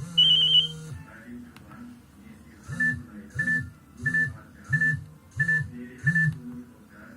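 Nokia 7610 ringtone music: a held synthesized note that stops after about a second, then after a pause a rhythmic figure of short repeated notes, about one and a half a second.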